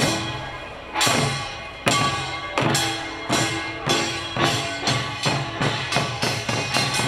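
Korean pungmul percussion: hand-held drums and hourglass janggu drums struck together by a troupe. The strikes start about a second apart and speed up to a quicker beat.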